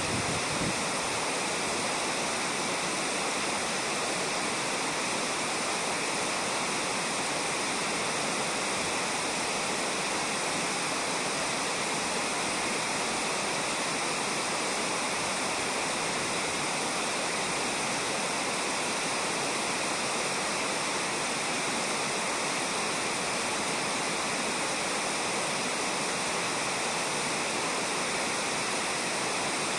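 Steady rush of a clear mountain river flowing over a shallow gravel bed.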